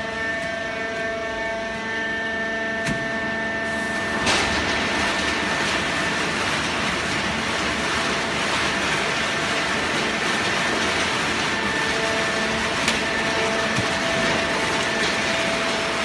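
Fully automatic horizontal hydraulic baler running: a steady machine hum with several whining tones. About four seconds in, a louder rushing noise joins it and carries on.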